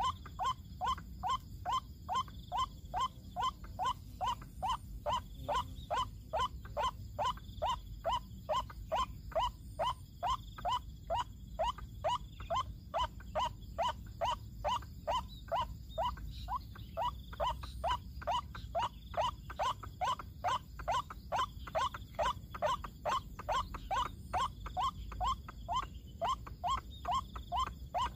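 White-breasted waterhen call: a short note repeated very steadily, about two a second, without a break.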